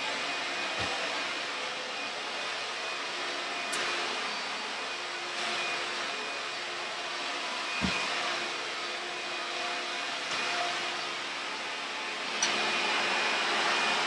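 Hoover Runabout Supreme Triple Filtration upright vacuum cleaner running steadily as it is pushed over carpet, a steady rushing hum with a faint motor whine. Two short low thumps, about a second in and about eight seconds in, and a sharp click near the end.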